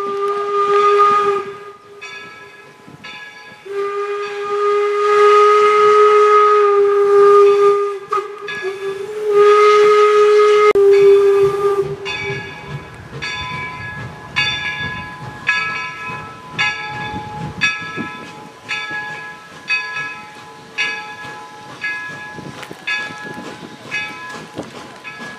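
A 4-4-0 steam locomotive's single-chime whistle blowing several long blasts for a grade crossing, then a steady beat of strokes about twice a second with a lingering ringing tone and low rumble as the engine rolls in.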